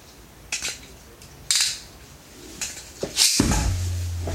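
Small plastic clicks of a Beyblade Burst top being handled and fitted to its launcher. About three seconds in comes a quick, loud rasping ripcord pull, and then a steady low hum of the top spinning.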